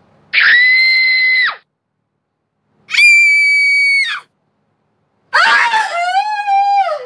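A woman screaming three times with short pauses between. The first two screams are very high-pitched and held steady for about a second and a half each. The third is lower and wavering, and its pitch falls away at the end.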